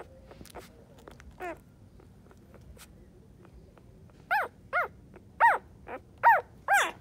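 Young puppy whimpering: one faint cry, then about six short high cries in quick succession near the end, each sliding down in pitch.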